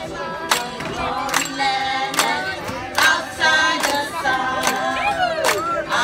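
A group of men and women singing together into microphones, with hands clapping in a steady rhythm a little faster than once a second.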